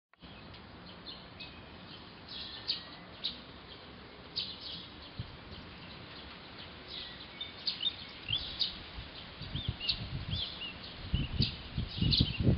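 Small birds chirping and whistling again and again. From about nine seconds in, low gusty thumps of wind buffeting the microphone come in and grow louder as the storm arrives, the loudest sound by the end.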